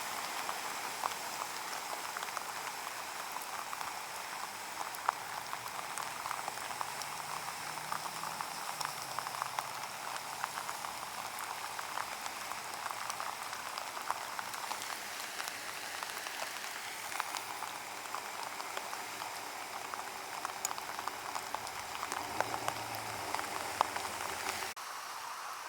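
Rain falling onto flooded street and standing water: a steady, dense patter of drops. It becomes quieter about a second before the end.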